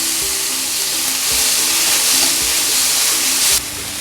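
Onions, green chillies and curry leaves frying in hot oil in a pan, a steady sizzle that grows louder about a second in and drops off abruptly near the end. Faint background music runs underneath.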